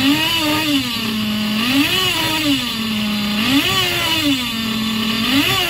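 Hongnor nitro engine in an RC car idling at a steady pitch, with about four short throttle blips that rise and fall evenly. It keeps running without stalling, its carburetor being set after a clutch shoe change.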